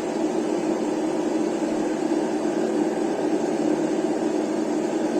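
RC truck sound module playing a simulated diesel engine idle through its small speaker, running steadily without change. It keeps going instead of switching off as the owner expects it to.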